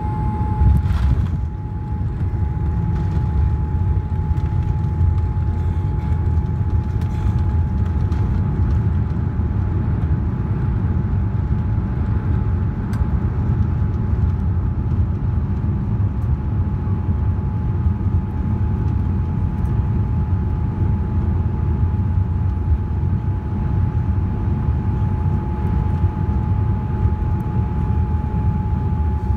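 Cabin sound of a Boeing 787-8 touching down, with a jolt about a second in as the wheels meet the runway. A steady low rumble of the landing roll follows, with the spoilers up, a steady high tone throughout and a few light knocks.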